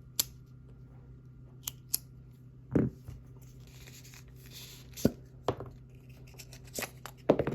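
A pen and its packaging being handled at close range: a few sharp clicks and knocks, with a brief light rustle midway.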